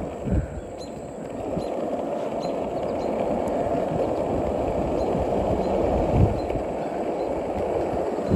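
Skateboard wheels rolling on an asphalt path, a steady rolling noise, with a low thump about a quarter-second in and another about six seconds in.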